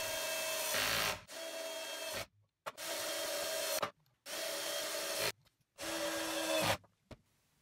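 Drill driving self-tapping screws into hard maple: five short runs of the motor whirring as each screw bites into the wood. Each run stops abruptly.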